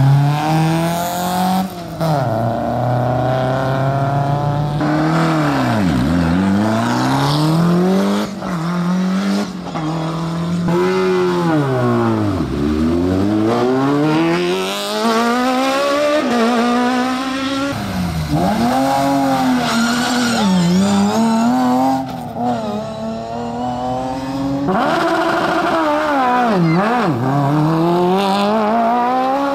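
Historic rally car engines revving hard and accelerating away from a stage start, their pitch climbing and dropping several times, in a run of short clips that change abruptly.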